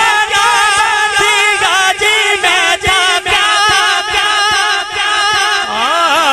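Male naat reciter singing unaccompanied in a wordless, ornamented run, the pitch wavering rapidly up and down; about six seconds in the voice moves into a lower phrase.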